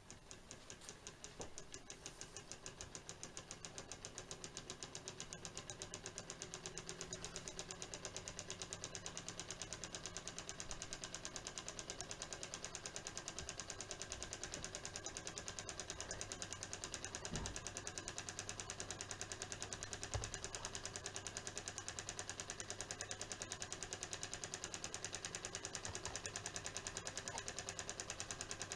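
Tealight-heated model Stirling engine running, its flywheel and linkage making a rapid, even ticking that speeds up and grows louder over the first few seconds after it is started by hand, then holds a steady pace. One brief low knock about two-thirds of the way through.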